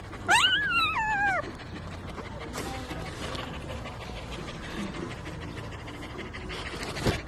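A husky-mix puppy gives a high whining cry that falls in pitch, about a second long, near the start. A dog pants steadily after it, and there is a short knock near the end.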